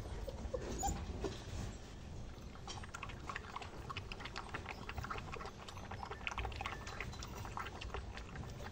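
A puppy lapping milk from a bowl: a rapid train of small wet tongue clicks and slurps.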